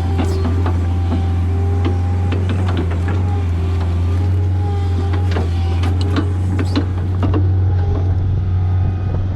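Excavator engine running steadily under load, with a steady hydraulic-type whine over it. Irregular sharp cracks and clicks run through it.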